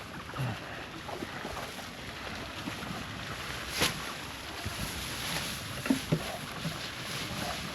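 Dry hay rustling as a bale is pulled apart and spread, with a few knocks, a sharp click about four seconds in and two thumps a little after six seconds.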